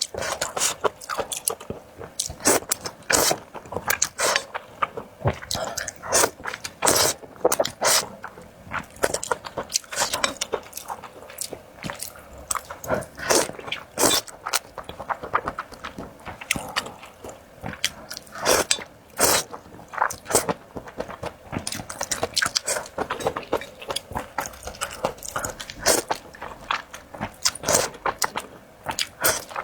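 A person eating a bowl of spicy luosifen (river snail rice noodles), picked up close: chewing and biting with irregular crisp crunches and wet smacking clicks.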